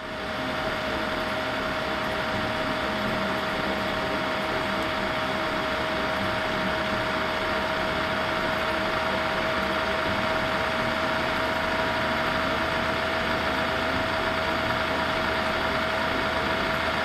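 Laptop cooling fan running with a vibrating whir and a steady whine.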